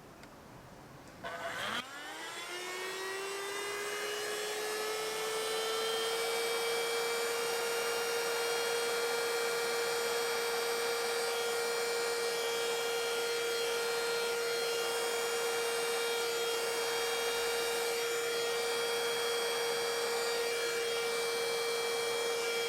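Hair dryer switched on about a second in, its motor whine rising in pitch as it spins up, then running steadily with a rush of air, blowing out wet acrylic paint for a bloom pour.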